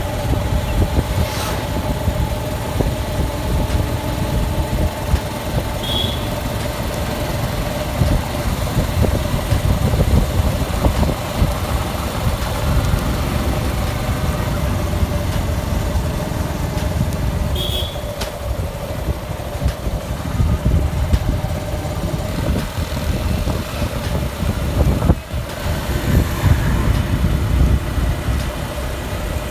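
Suzuki Gixxer SF's 155 cc single-cylinder engine running while riding, heard under heavy wind rumble on the microphone. Short high chirps sound twice, about 6 and 18 seconds in.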